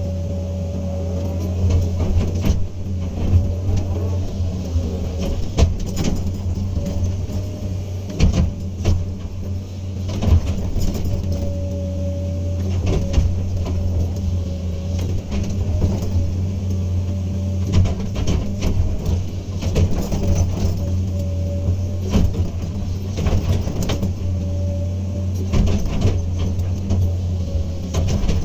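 Komatsu PC200 excavator working: a steady diesel engine drone with a hydraulic whine that comes and goes, and frequent sharp knocks and clatters throughout.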